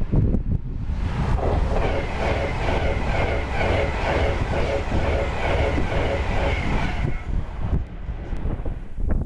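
A train passing at speed, with a fast repeating clatter of wheels on the track from about a second in until about seven seconds, over low wind rumble on the microphone.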